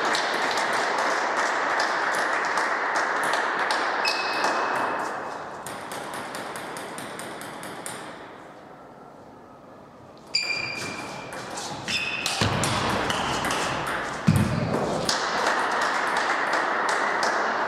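Table tennis balls clicking sharply on bats and table, many quick hits in succession, over a steady hiss. Two dull thumps come a little past the middle.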